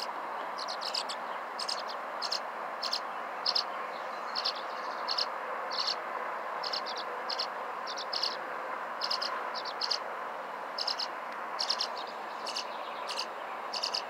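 Nestling birds begging for food with short, high chirps, often two or three in quick succession, repeating every half second or so over a steady background hiss.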